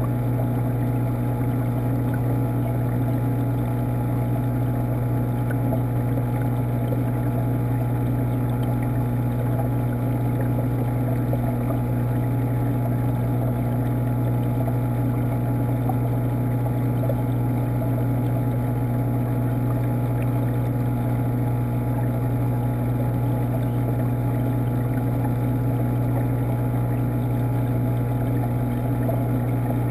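Steady low hum of an aquarium's water pump running, heard underwater through the tank water by a camera submerged in the tank, unchanging throughout.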